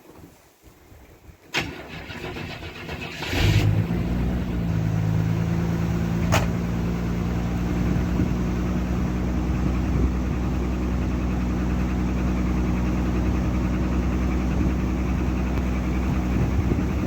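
A vehicle engine cranking and catching about three seconds in, then idling steadily on a cold start in winter.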